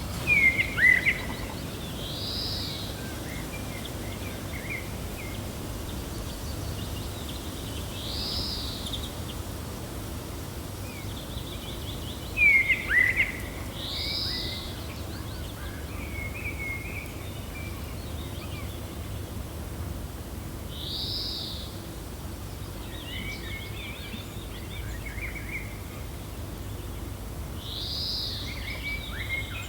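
Gentle wind with songbirds calling. A short arched call repeats about every six to seven seconds, and quick runs of chirps come in between, loudest near the start and about twelve seconds in.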